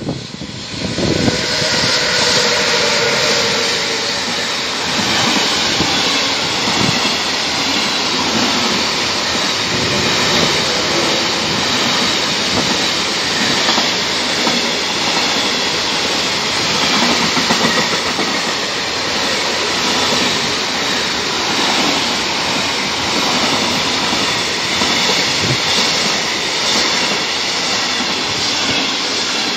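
Electric-hauled intermodal freight train passing close by, its wagons loaded with lorry semi-trailers. The steady loud rumble and clatter of the wagon wheels on the rails fills the whole stretch. A faint whine sounds in the first few seconds as the locomotive comes in.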